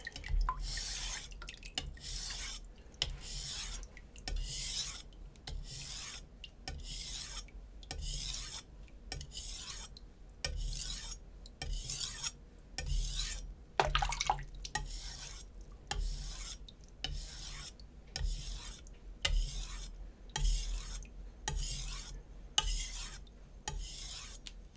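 A chef knife's edge stroked back and forth across a wet 400-grit Naniwa Superstone whetstone: a long, even run of gritty scraping strokes, dozens of them, with short gaps between.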